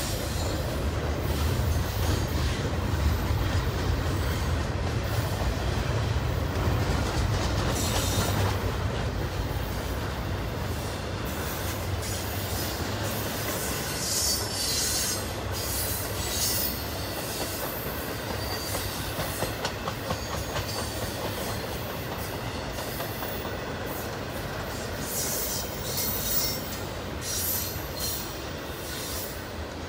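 Double-stack container train's well cars rolling past at close range: a steady rumble of steel wheels on the rails, easing slightly partway through, with high-pitched wheel squeal coming and going.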